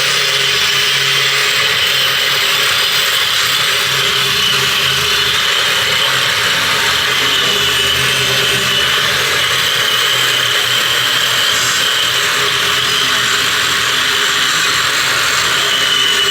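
Handheld power tool running continuously under load: a steady whine over a loud hiss that does not let up.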